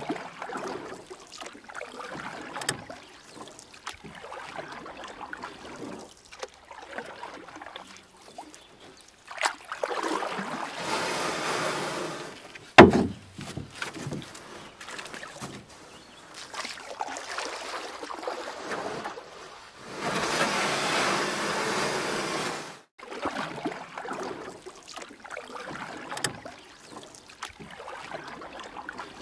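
Kayak paddling: paddle blades swishing and splashing through the water in spells of a few seconds, with dripping between strokes. A single sharp knock about halfway through is the loudest sound.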